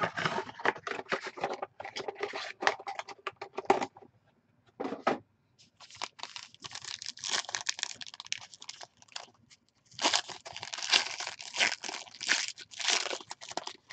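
Foil trading-card pack wrapper crinkling and being torn open by hand, in crackly spells with a short pause about four seconds in, loudest near the end.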